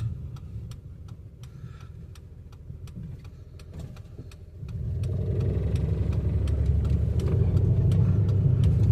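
A 2005 Chevy Impala's engine running rough and stumbling with scattered ticks, then getting much louder about five seconds in as it is given throttle. The owner takes the stumbling for a misfire.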